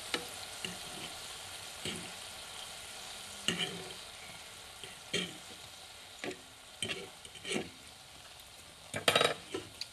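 Gluten-free mushroom meat-substitute pieces sizzling steadily in a nonstick frying pan as they are turned one by one with a utensil. A scattered series of light taps and scrapes of the utensil against the pan comes through, the loudest cluster near the end.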